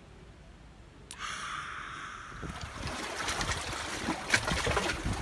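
Sea water sloshing and splashing against rocks, starting suddenly about a second in and growing fuller and more broken from about halfway.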